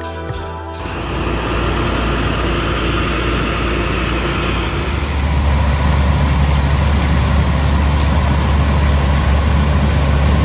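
Music cuts off about a second in, giving way to a John Deere S690 combine harvester running steadily with a loud low drone. About five seconds in the low drone steps up and grows louder.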